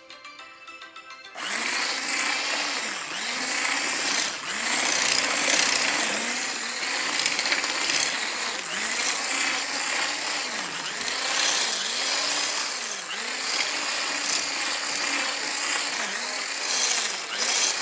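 Corded handheld electric mixer switched on about a second and a half in, then running steadily as it is worked through dry purple bath bomb powder in a stainless steel bowl. Its pitch dips and recovers about once a second as the beaters load up in the powder.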